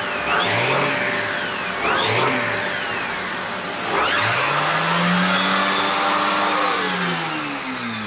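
Vax Power Stretch Pet cylinder vacuum cleaner running with its turbo brush head on the hose. The pitch swells up and down in short arches as the head is worked over carpet, then holds higher for a few seconds in the second half before falling away near the end.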